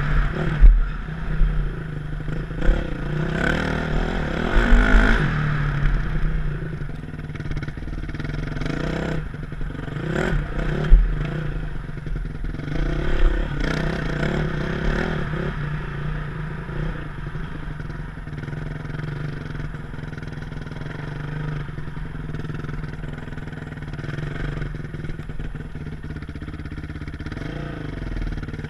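Four-stroke dirt bike engine being ridden, its revs rising and falling through the throttle, with wind buffeting the helmet-mounted microphone. A few sharp knocks come from bumps, the loudest about a second in and about eleven seconds in.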